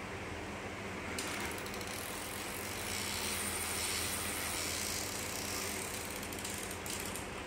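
Robot winch whirring as two BAG motors, through a gearbox, wind a rope onto a Velcro-covered shaft, with a fast ratchet ticking; it starts about a second in and stops near the end.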